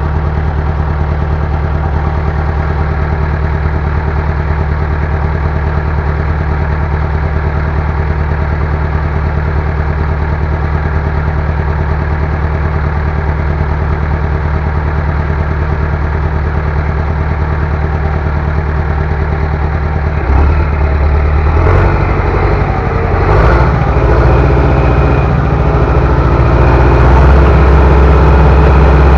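Bulldozer's diesel engine running at a steady idle, then getting louder and rougher about twenty seconds in as it is throttled up or put under load.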